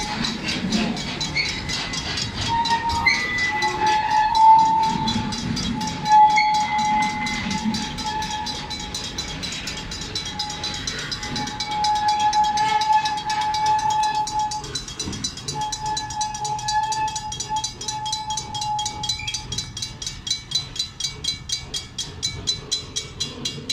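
Railroad crossing bell ringing in steady, rapid strokes as a park train's open-sided passenger cars roll past, with a low rumble early on. High steady tones come and go while the cars pass, then die away, leaving the bell alone near the end.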